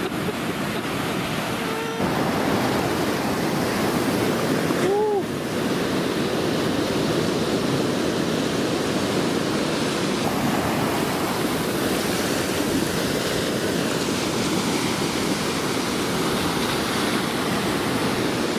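Ocean surf: a steady rush of waves washing up the shore, with a short tone that rises and falls about five seconds in.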